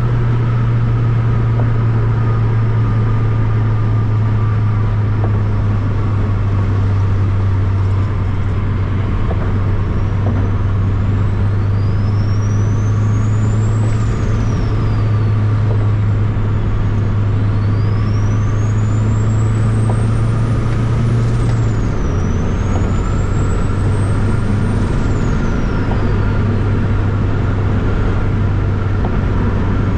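Inside the big-turbo Honda Accord on the move: a loud, steady low engine and road drone, with a high turbo whine that rises over a few seconds and falls away three times, roughly a third of the way in, just past halfway and again a few seconds later.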